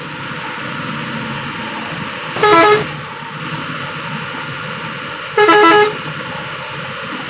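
Bus horn sounded twice in short blasts about three seconds apart, warning the truck ahead that is being overtaken, over the steady drone of the bus's engine and tyres heard from inside the cab.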